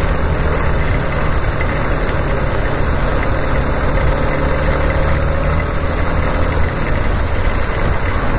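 Yamaha XTZ 250's single-cylinder engine running steadily while riding, under an even hiss of wind and spray off the wet road.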